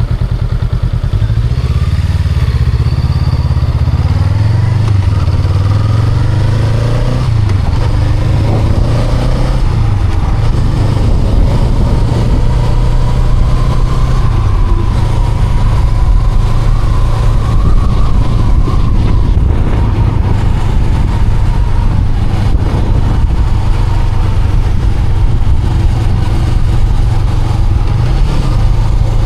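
Honda Rebel 500's 471 cc parallel-twin engine running under way. Its note rises as it accelerates over roughly the first ten seconds, then holds steady at a cruise.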